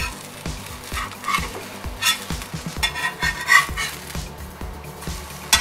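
Slotted metal spatula scraping and clattering on a flat tawa as it slides under a slice of butter-fried bread and turns it, over a light sizzle of butter. Background music with a steady beat plays throughout.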